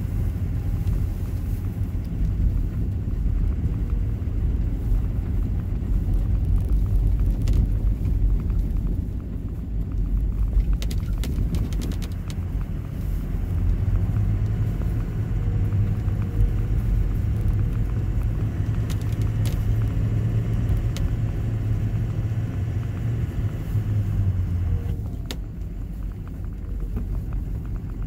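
Steady low rumble of a vehicle driving on a snow-covered road, heard from inside the cab: engine and tyres on packed snow, with a few faint clicks. It quietens about 25 seconds in.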